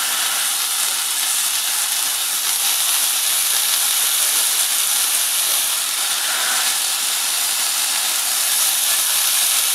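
Hot dogs sizzling on the preheated grill grate of a Ninja Foodi Smart XL Pro indoor grill set to high, a steady hiss.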